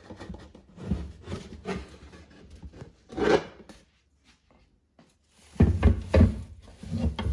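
Homemade MDF computer case cover being worked off by hand: wood scraping and rubbing, then several heavy thumps in the last couple of seconds.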